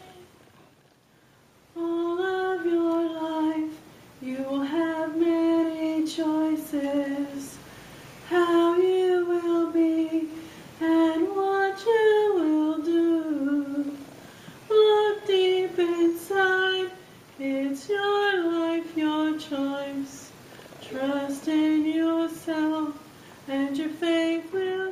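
A woman singing solo without accompaniment, in phrases of a few seconds with short breaths between them, beginning about two seconds in.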